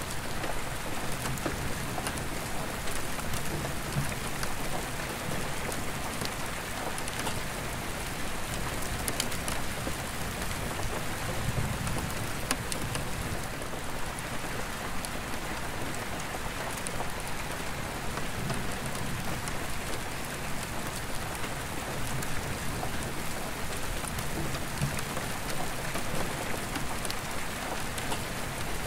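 Steady rain falling on an attic skylight, with single drops ticking on the glass. Distant thunder rumbles low a few times, loudest about halfway through.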